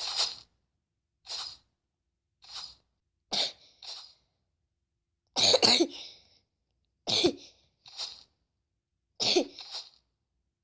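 A girl coughing over and over: about ten separate short coughs with brief pauses between, some louder than others.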